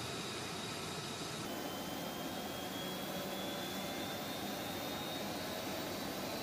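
F-35 Lightning II's Pratt & Whitney F135 jet engine running on the ground: a steady rush of noise with a high whine. About a second and a half in the whine drops lower, then slowly climbs in pitch.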